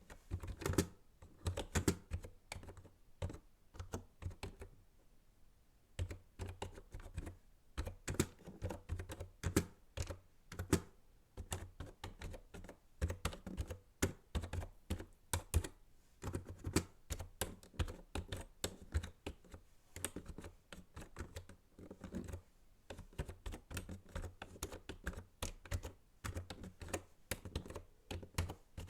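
Typing on a computer keyboard, a quick run of key clicks that pauses briefly about four seconds in, then carries on.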